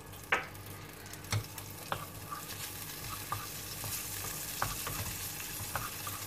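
Crushed garlic frying in melted butter in a pan, with a steady sizzle that grows stronger a few seconds in. A wooden spoon stirs it, knocking sharply against the pan several times.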